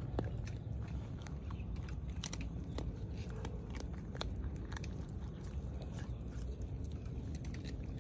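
Dogs crunching and chewing dry food off the road: irregular sharp crunches over a steady low rumble.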